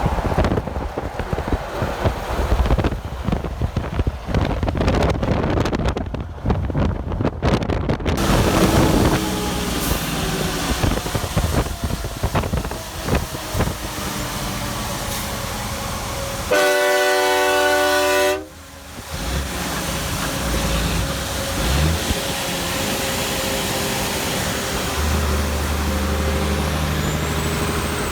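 Highway traffic with wind buffeting the microphone; past the middle, a truck's train horn sounds one blast of several tones together for about two seconds and cuts off sharply.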